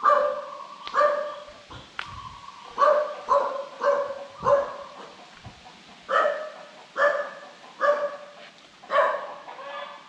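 A dog barking repeatedly, about ten short barks at roughly one a second, with a brief pause in the middle.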